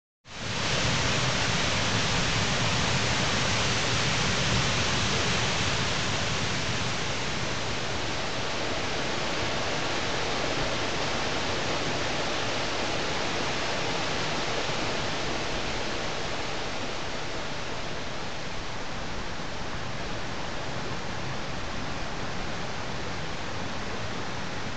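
Steady rush of whitewater tumbling down a rocky mountain cascade. It starts abruptly just after the start and eases slightly in level over time.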